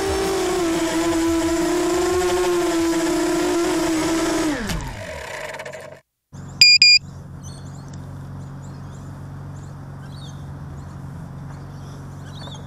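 Motors and propellers of a ZMR250 racing quadcopter whining in flight, the pitch wavering with the throttle, then spooling down in a falling whine as it lands, about four and a half seconds in. After a brief dropout come two sharp high-pitched beeps, the loudest sound, and then a steady low outdoor background.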